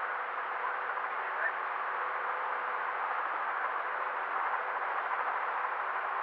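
Steady helicopter cabin noise heard as an even hiss with a faint steady whine, thin and narrow-banded as if picked up through the aircraft's intercom.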